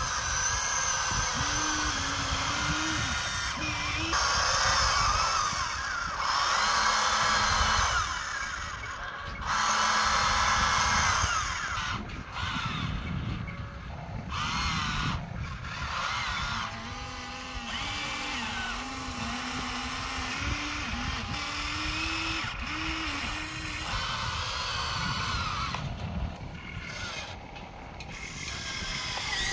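Small electric motors and gearboxes of a remote-control toy excavator whining as the boom, arm and bucket move, in repeated stretches of a couple of seconds with the pitch shifting as the motors speed up and slow down.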